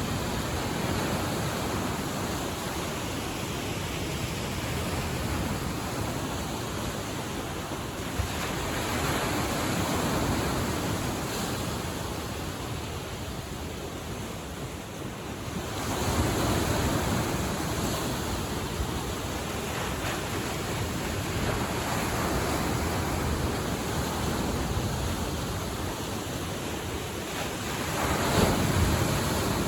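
Lake Michigan waves washing onto the shore in a steady rush, swelling louder every several seconds as bigger waves break, with wind on the microphone.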